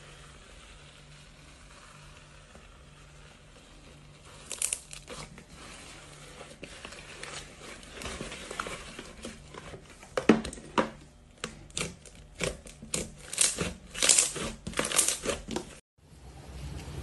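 Slime worked by hand, squeezed and pulled, giving crackling, popping clicks. It is faint for the first few seconds, then the clicks come sparse and grow dense and loud in the second half, cutting off briefly near the end.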